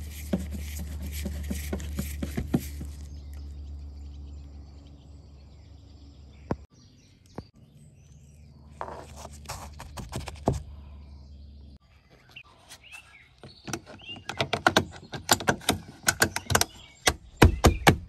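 Hands fitting plastic trim covers and screws back onto a pickup truck's door: scattered sharp clicks, then a quick run of clicks and knocks near the end. A steady low hum runs underneath and stops about two-thirds through.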